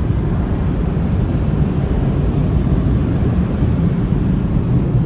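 Car-wash tunnel air dryers blowing a loud, steady rush of air over the car, heard from inside the cabin.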